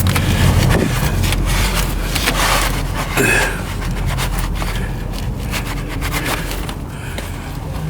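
Irregular scraping and rubbing strokes as the aluminum thermostat housing mounting surface on the engine is wiped and cleaned, over a steady low hum.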